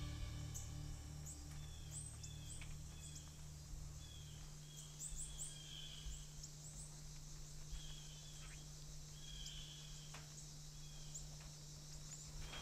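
Faint field ambience: small birds chirping in short, high calls scattered throughout, over a steady low hum.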